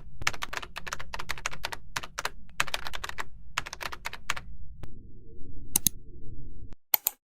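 Computer keyboard typing in quick runs of keystrokes, stopping about four and a half seconds in, followed by a few single clicks over a low hum.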